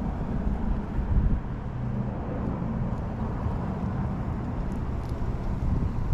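Steady low rumble of road traffic going by on the nearby road, rising and falling slightly.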